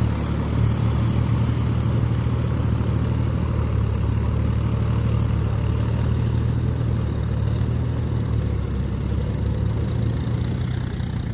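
John Deere tractor's diesel engine running steadily under load as it works a wet paddy field on cage wheels, a low even drone that fades slowly as the tractor moves away.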